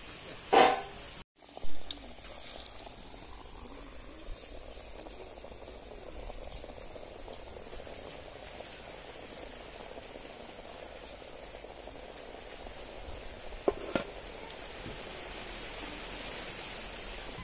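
Hot oil bubbling and sizzling steadily as beetroot and roasted-gram snack pieces deep-fry in a pan. Two loud sudden sounds come near the start, and two sharp knocks about three-quarters of the way through.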